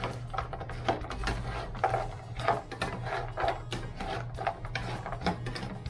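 Two wooden spatulas scraping and knocking against a nonstick frying pan as they toss fried tofu cubes in a creamy mayonnaise sauce. The clatter is irregular, several knocks a second.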